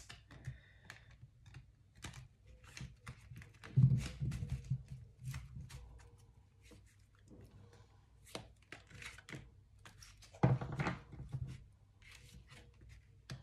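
A deck of tarot cards being handled and shuffled on a table: a steady run of quick flicks and taps of card on card, with two louder thumps about four and ten and a half seconds in.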